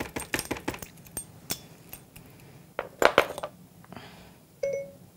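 A ring of metal measuring spoons clinking and jangling, tapped against a food processor's bowl in a run of quick clicks, with a louder clatter about three seconds in. A short beep sounds near the end.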